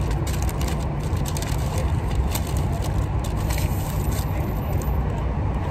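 Steady low rumble of wind buffeting the microphone, over irregular crinkling of a paper burger wrapper and the small crackles and clicks of eating.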